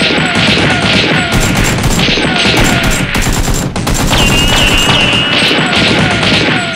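Rapid automatic gunfire sound effects, a continuous fusillade of shots, over background music.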